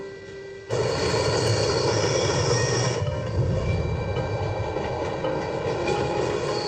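Train running through a tunnel: its loud noise comes in suddenly about a second in and holds steady.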